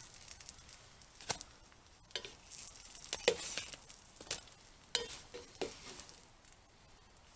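Food frying in a pan over a campfire: a faint sizzle with about six irregular light clicks and taps.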